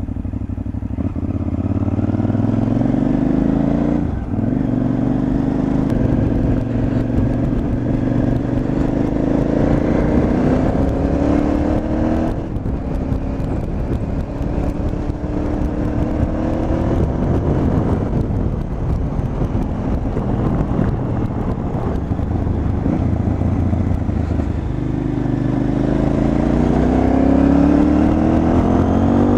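KTM 950 Adventure's V-twin engine under way, its revs climbing and then falling back sharply several times, about four and twelve seconds in, with a long climb again near the end.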